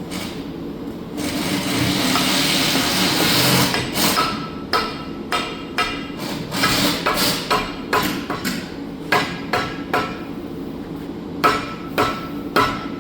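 A rushing noise for a couple of seconds, then a dead blow hammer striking a hydraulic lift cylinder's gland again and again, about two blows a second. The hammer drives the gland forward inside the cylinder tube so that its thread can start.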